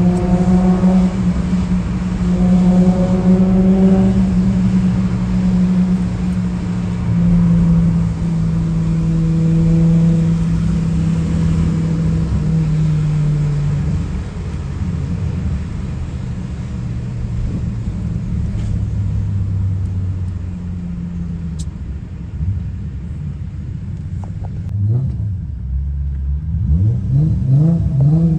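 Car engine running while driving, holding a steady pitch, dropping to a lower pitch about halfway, then revving in quick rising sweeps near the end.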